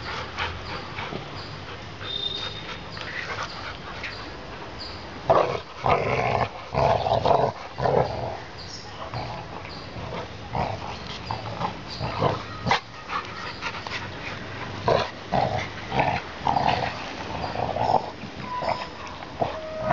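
Two yellow Labrador retrievers play-fighting, giving short, repeated bursts of growling and grunting as they wrestle and mouth at each other. The bursts are thickest a few seconds in and again in the second half.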